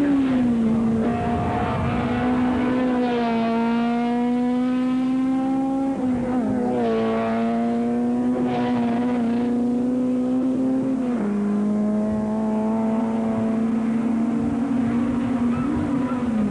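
Racing car engines passing on a circuit: one strong, steady engine note that climbs slowly and drops suddenly about six and again about eleven seconds in.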